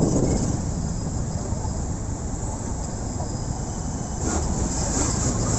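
Traffic and road noise heard from a moving motorcycle, a steady rumble with a high hiss, growing louder about four seconds in.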